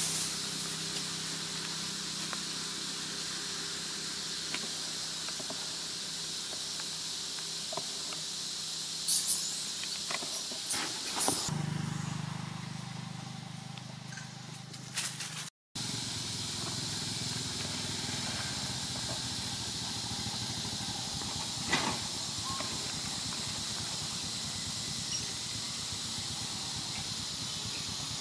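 Steady outdoor background hiss with a few faint, brief knocks or rustles. The sound drops out completely for a moment at an edit about halfway through.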